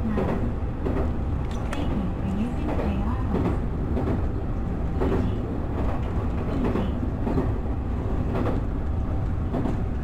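Electric commuter train running along the track, heard from inside the driver's cab: a steady rumble with sharp clacks of the wheels over rail joints and points at irregular intervals.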